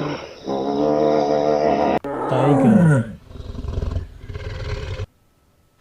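A hippopotamus giving a steady low call for about a second and a half, then a tiger roaring loudly, falling in pitch and breaking into a rough growl that cuts off abruptly about five seconds in.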